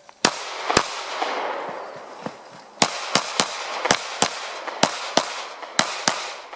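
Pistol fired during a practical-shooting stage: two shots, a pause of about two seconds, then about nine more in quick succession, each sharp crack trailed by an echo off the range.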